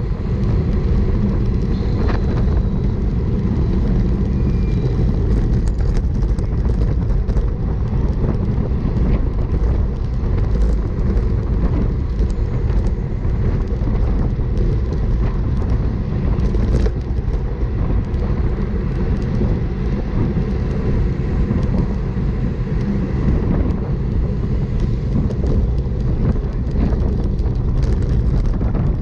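Steady wind buffeting on a bike-mounted camera's microphone while riding at racing speed, about 22–26 mph, mixed with road noise.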